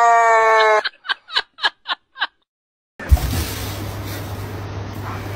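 Husky howling, one long held note that falls slightly in pitch and stops about a second in, followed by six short clipped sounds at about four a second. After a gap, a steady low hum with a knock begins.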